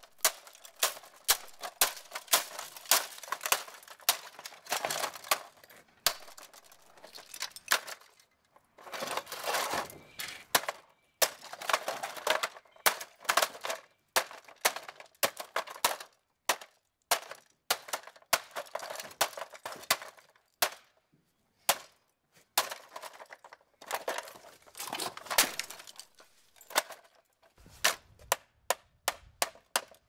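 A hammer repeatedly striking a Martec Rota Breeze box fan, cracking its plastic case and grille, with stretches of clattering between blows. Near the end the blows come faster, about three a second.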